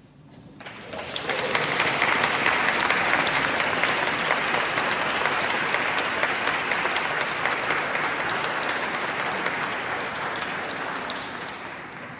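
Audience applauding: the clapping breaks out about half a second in, swells to full strength within a second or so, holds, then slowly dies away near the end.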